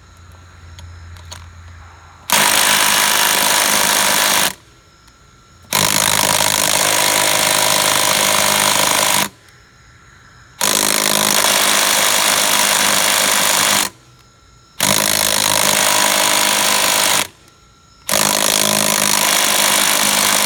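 Impact wrench hammering in five bursts of a few seconds each, with short pauses between them, working the lug nuts during a wheel change.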